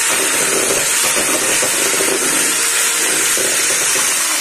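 Arzum electric hand mixer running steadily at speed, its beaters whisking cake batter in a stainless steel bowl.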